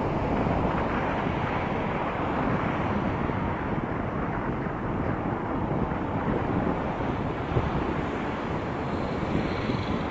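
Wind rushing over the microphone of a camera mounted on a moving car's roof, a steady low rush with road noise from the driving car underneath.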